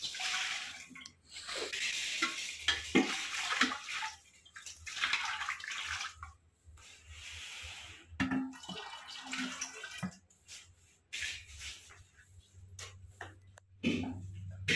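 Curd thinned with water being poured from steel vessels into a clay churning pot, splashing in several uneven pours, with steel vessels knocking now and then.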